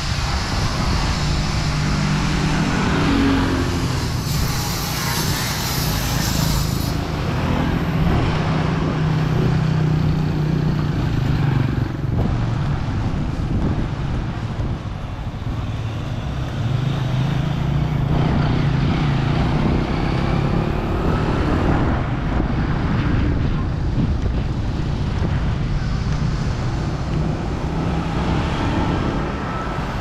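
Busy city street traffic: a steady mix of passing vehicle engines and road noise.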